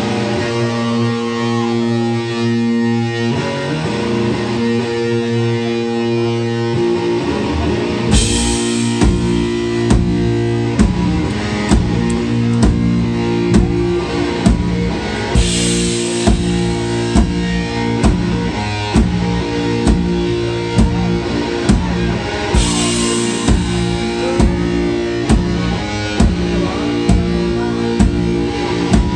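Rock band playing live, an instrumental opening with no singing: a guitar riff on its own at first, then the drum kit comes in with a cymbal crash about eight seconds in and keeps a steady beat, with further crashes every seven seconds or so.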